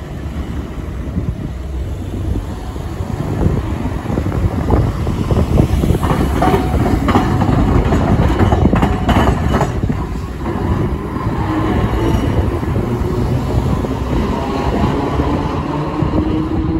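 Orange Iyotetsu streetcar rumbling across the diamond crossing, its wheels clacking sharply over the gaps in the crossing rails for a few seconds about midway, with cars driving past alongside.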